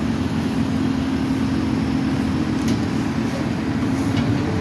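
Heavy diesel road-construction equipment running steadily: a continuous low engine drone with a steady hum in it, and a couple of faint clicks.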